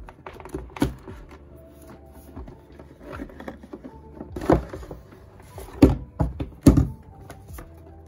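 Cardboard packaging being handled: a hair dryer and the box's cardboard insert tray lifted out, giving a string of knocks and scrapes, with the sharpest knocks in the second half. Background music with steady tones plays throughout.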